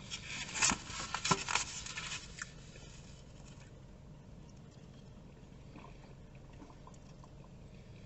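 Rustling and scraping of food packaging being handled for about two and a half seconds, then quiet.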